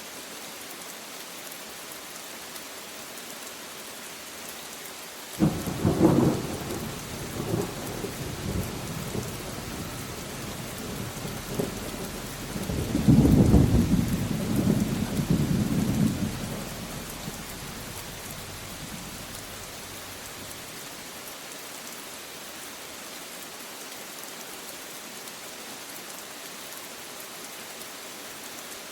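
Steady rain falling, with a thunderclap that breaks suddenly about five seconds in and rumbles on, then a second, louder roll of thunder that swells and dies away around the middle.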